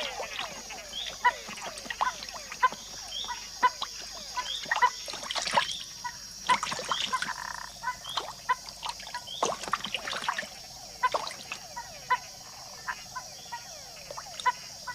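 Night chorus of túngara (mud-puddle) frogs calling at a pond, with a few falling whines near the start and many short chirps and clicks. A steady high insect hum runs underneath.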